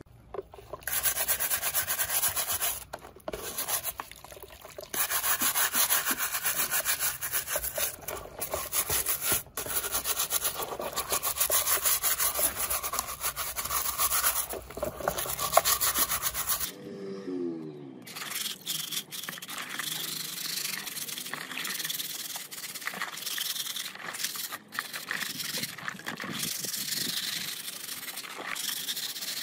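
Repeated abrasive rubbing strokes, as in sanding or scrubbing by hand. The rubbing is loud at first, then cuts out about two-thirds of the way through and goes on more quietly and thinly.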